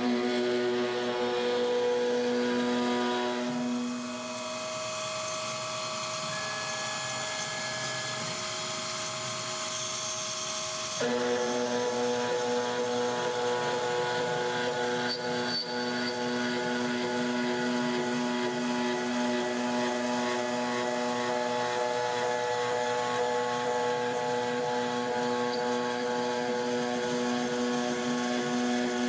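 A CNC milling cut in 6061 aluminum: a 1/2-inch two-flute carbide end mill at 8000 rpm on an MR-1 gantry mill, under flood coolant, on a high-speed machining toolpath. The cut gives a steady, high-pitched hum with overtones over a hiss. About four seconds in the hum drops away to a quieter, different tone, and about eleven seconds in the full cutting hum comes back abruptly.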